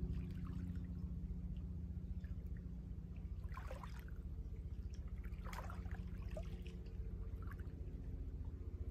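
Lake water lapping and splashing softly, with two louder splashes about three and a half and five and a half seconds in, over a steady low hum.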